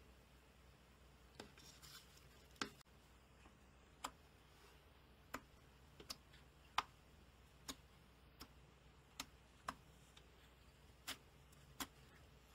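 Slime being pressed and poked with fingers, giving a dozen or so short, sharp pops and clicks, irregularly spaced about a second apart, over a quiet background.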